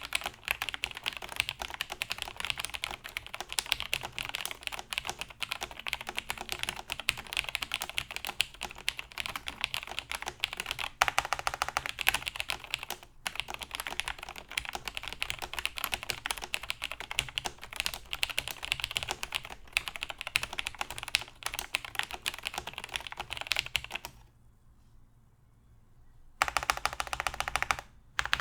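Fast, continuous typing on a Cherry MX5000 Ergoplus keyboard with plateless-mounted, lubed vintage Cherry MX Brown switches and Cherry doubleshot keycaps. The typing stops for about two seconds near the end, then starts again.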